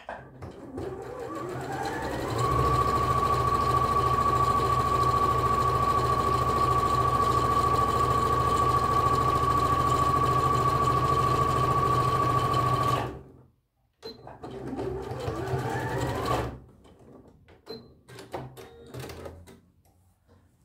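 bernette b38 computerised sewing machine stitching fabric: the motor speeds up over about two seconds, runs steadily with a high whine for about ten seconds, and stops suddenly. After a short pause it makes a second run of a couple of seconds, followed by a few light clicks.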